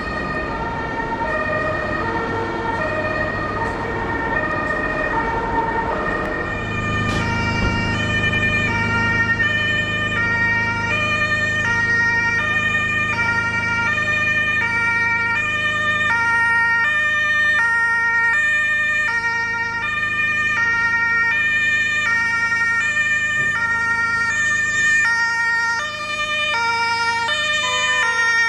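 German emergency vehicle two-tone siren (Martinshorn) sounding its alternating high-low call, with a steady high tone beneath it. About a quarter of the way in, the siren comes close and sharpens, and a heavy vehicle engine rumble rises under it as the vehicle drives up.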